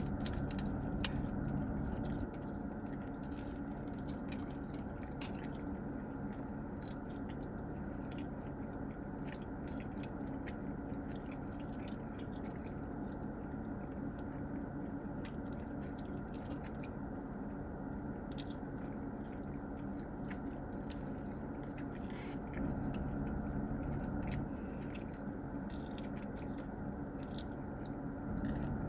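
Close mouth sounds of people chewing soft pretzel twists with cheese sauce: scattered small wet clicks and smacks over a steady low hum.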